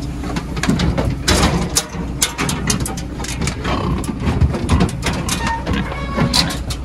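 Pigs being handled off a livestock truck: many short knocks and clatter, as of hooves and gates on metal, over a steady low rumble.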